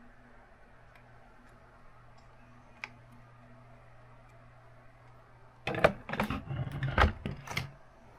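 Plastic building-brick model being handled: after a quiet stretch with a low hum and a few faint ticks, a rapid cluster of sharp plastic clacks and knocks starts near the end, as a floor section of the modular building is lifted off.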